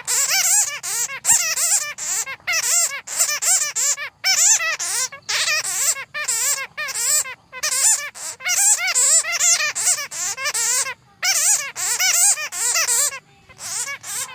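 Bats chattering: fast runs of high, wavering squeaks in bursts broken by short pauses.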